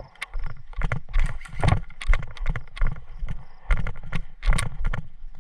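Airsoft guns firing at a target: an irregular run of sharp shots, roughly two to three a second.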